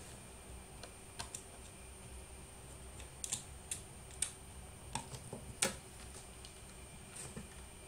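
Scattered, irregular sharp clicks and light taps, several close together between about three and six seconds in, over a faint steady high-pitched tone.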